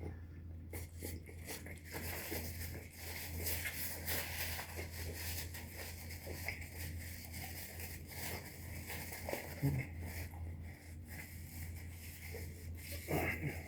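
A person chewing and crunching through a fried hot chicken sandwich, with irregular crackles of the paper wrapper being handled, over a steady low hum.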